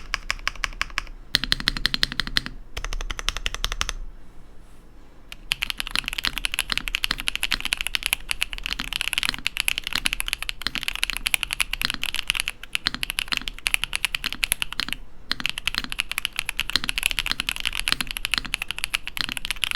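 Typing test on a Shadow Zeus75 V2 gasket-mount 75% mechanical keyboard with Shadow Frappuccino linear switches and PBT double-shot keycaps: fast, continuous key clacks. The typing stops for about a second and a half about four seconds in and breaks off briefly again near fifteen seconds.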